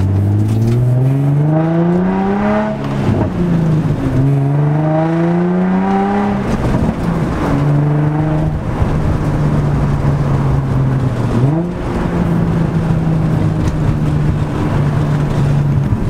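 Infiniti G35 coupe's 3.5-litre V6, heard from inside the cabin, accelerating through the gears of its manual gearbox. The engine note rises and drops sharply at an upshift about three seconds in, and again about six and a half seconds in. It then holds steady at cruise, with a brief dip and climb about three quarters of the way through.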